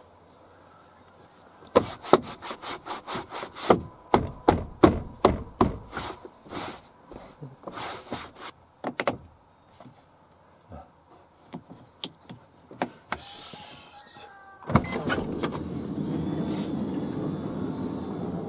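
A quick run of sharp clicks and knocks on plastic interior trim, then, about fifteen seconds in, a clunk and the steady running of the Toyota Alphard's power sliding door as it opens on its newly replaced motor.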